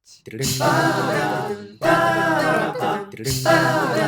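Multi-tracked a cappella voices singing a jazz intro in close harmony, in three phrases of about a second and a half each.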